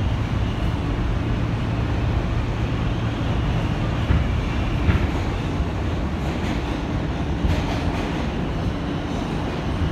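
Inside an R160 subway car running between stations: a steady rumble of wheels on rail and running gear, with a few short louder clicks and knocks about four, five and seven and a half seconds in.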